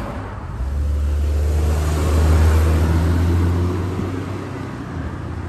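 A small hatchback car passing close by and driving away. Its low engine hum swells to a peak about two seconds in and fades out before the end.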